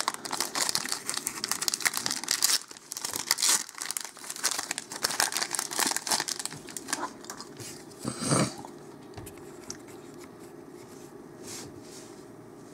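Foil booster-pack wrapper of trading cards being torn open and crinkled in the hands, a dense crackling that dies down about seven seconds in as the cards come out of the pack.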